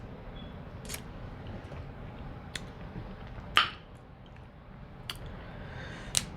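Close-up eating sounds of a seafood boil: a few scattered wet clicks and smacks from chewing and handling the food, the loudest about three and a half seconds in, over a steady low hum.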